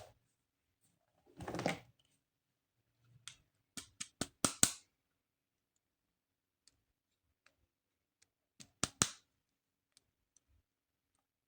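Plastic toy pieces and packaging being handled: a short rustle, then a quick run of sharp clicks and snaps, and two more clicks later.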